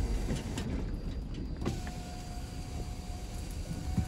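A car's power window motor running with a steady whine, starting about halfway in, over the low rumble of the car's cabin.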